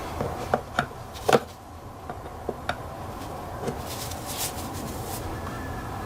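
Several short clicks and knocks of a hand tool and plastic intake parts being handled, the loudest about a second in, with a brief rubbing scrape later on.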